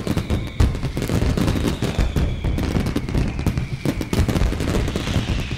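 A dense barrage of New Year firecrackers and fireworks going off, rapid sharp cracks with a few faint whistles falling in pitch.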